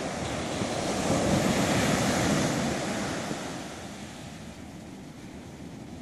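Atlantic surf: a wave breaks and its white water washes up the beach, swelling about a second in and dying away after about four seconds.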